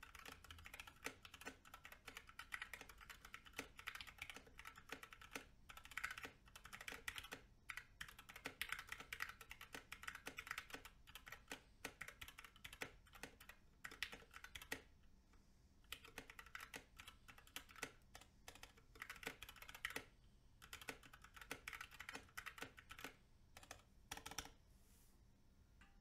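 Faint typing on a 60% mechanical keyboard with Gateron Black linear switches, black PBT keycaps and an aluminium case: quick, uneven runs of keystroke clacks with short pauses, stopping a couple of seconds before the end.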